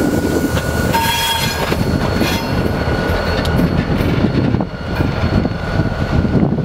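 Vermont Railway diesel freight train rolling past, with a steady low rumble from the locomotive and cars. A thin, steady wheel squeal runs over it, and a few sharp clicks come from the wheels on the rails.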